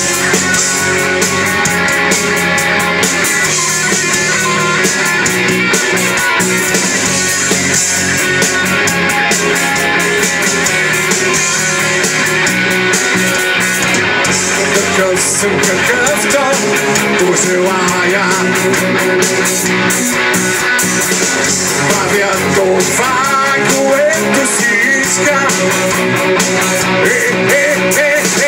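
Live rock band playing: electric guitars and a drum kit, loud and continuous.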